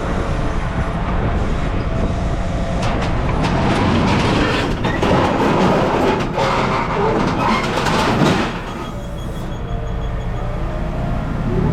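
Machinery running with a steady low drone while loose scrap metal clatters and rattles for several seconds, stopping abruptly near the end.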